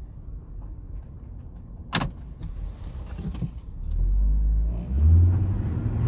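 Inside the cabin of a turbocharged Volvo S60 pulling away: low engine and road rumble, a single sharp click about two seconds in, then the engine note gets much louder and climbs in pitch under hard acceleration from about four seconds in.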